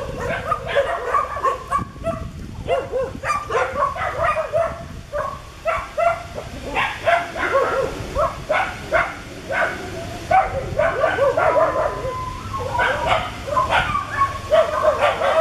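Long-tailed macaques calling: a continuous run of short, pitched squealing calls, several a second.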